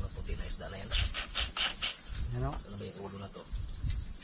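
A loud, high-pitched insect chorus: a steady shrill buzz that pulses rapidly and evenly without a break, with faint low voices in the middle.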